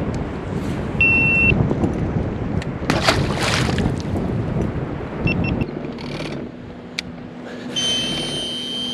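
Wind buffeting the microphone on an open boat deck over river chop, a dense rumble with a short splashy burst about three seconds in and a brief high beep about a second in. It then drops to a quieter steady low hum, with a high steady tone near the end.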